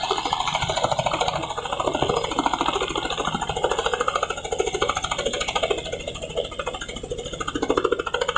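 Robinson R44 helicopter hovering low and settling toward the ground: fast, even rotor chop over the steady drone of its six-cylinder Lycoming piston engine.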